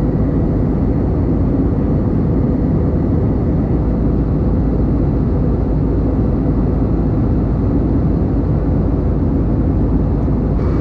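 Airbus A321-200ceo cabin noise at cruise, heard inside the cabin beside the wing-mounted jet engine: a steady, even roar of engine and airflow with a low rumble and a faint steady hum.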